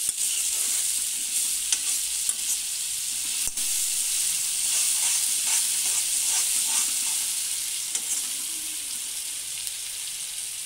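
Onion and spice masala sizzling in oil in an iron kadai, with a steel spoon stirring and scraping the pan and clicking against it now and then. The stirring stops near the end while the frying sizzle goes on.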